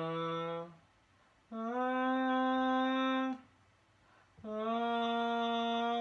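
A person humming long held notes, each about two seconds with a short pause between: a lower note ending near the start, then two higher notes at about the same pitch.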